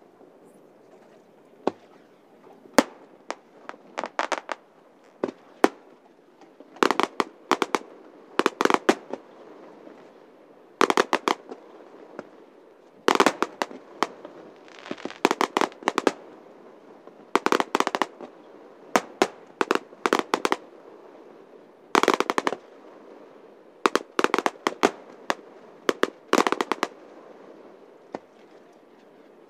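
Fireworks display: aerial shells bursting with sharp bangs, often in rapid clusters of crackling reports. A few scattered bangs at first, then volleys every second or two, thinning out near the end.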